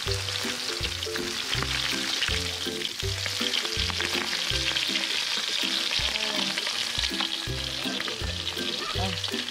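Whole fish sizzling as they fry in hot oil in a metal wok, with a steel spatula scraping the pan as it turns and lifts the fish. Background music with a steady repeating bass pattern plays underneath.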